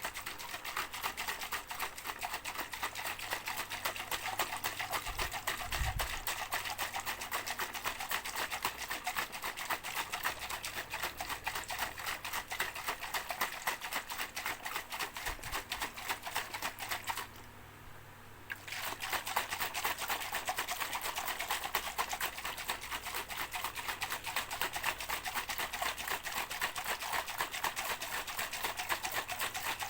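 A shaker shaken fast and without letup, a dense, even rattle that stops for about a second and a half a little past halfway, then starts again.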